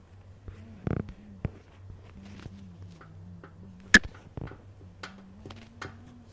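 Faint room noise: a steady low hum with scattered clicks and knocks, the sharpest a single click about four seconds in.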